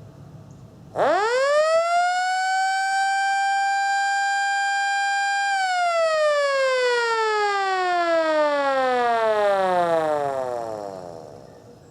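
Federal Signal Model A electromechanical siren given a short full run-up blast: about a second in it winds up quickly to a steady single tone, holds for about four seconds, then winds down slowly, its pitch falling as it fades near the end.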